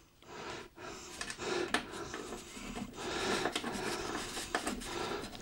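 Quiet handling noises as screws are turned by hand to fasten the side panel of a PC case: light scraping with a scatter of small clicks.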